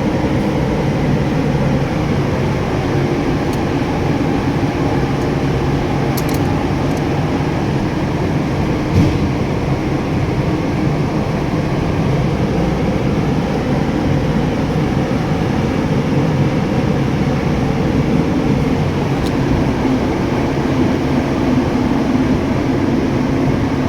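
Steady mechanical hum of a running machine, even throughout, with a single faint knock about nine seconds in.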